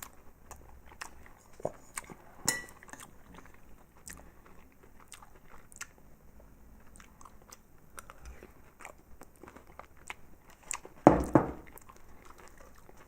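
A person chewing a mouthful of chili cheese French fries, with many small wet mouth clicks and a couple of louder sharp sounds, about two and a half seconds in and near the end.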